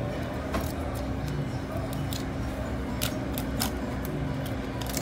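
Knife cutting along a jack mackerel on a cutting board while filleting, giving a few sharp clicks and scrapes as the blade passes through the fish, over a steady low hum.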